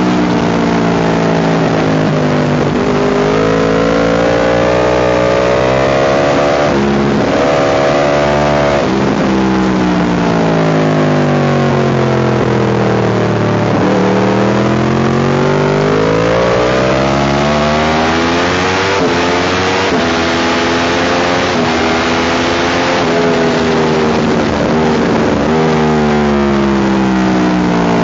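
Sport motorcycle engine at track speed, revving up through the gears with sudden pitch drops at each upshift, and falling in pitch under engine braking into corners, with wind noise over the microphone.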